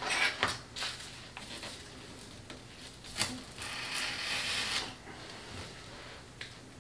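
Hobby knife blade drawn through foam core board: a scratchy cutting stroke about a second long around the middle, after a few light clicks and taps as the board is handled.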